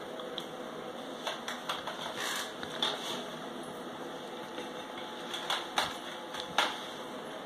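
Steady room hum with a handful of light, sharp clicks and knocks scattered through it, the loudest a little under six seconds in and again about a second later.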